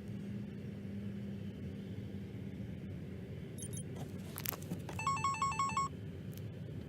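Steady low hum with a short electronic chime, a quick run of alternating beeping tones lasting under a second, about five seconds in.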